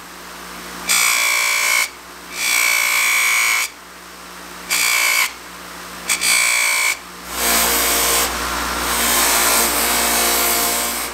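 A small metal part ground against a spinning bench grinder wheel in repeated short passes: five bursts of grinding with a high steady whine, the last and longest lasting about four seconds. The grinder motor hums steadily between passes.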